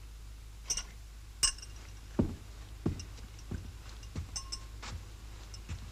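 Two light glass or dish clinks, then slow, even footsteps: short dull thuds about one and a half a second.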